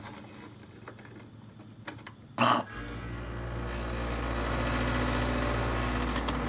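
Window air conditioner with its fan running, then a loud clunk about two and a half seconds in as the compressor kicks on, followed by a steady low compressor hum under the rush of the fan. This is a healthy unit starting up, how a properly charged compressor should sound.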